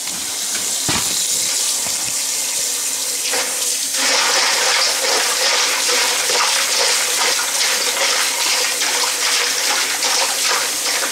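Kitchen faucet running steadily into a stainless steel bowl of ice water and just-poached shrimp in the sink, chilling them; the splashing stream gets louder about four seconds in.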